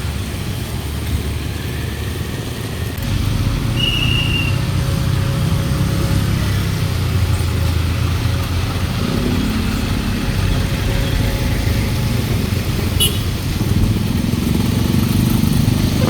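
Road traffic crossing over the level crossing: motorcycle and car engines passing in a steady low rumble that grows louder about three seconds in.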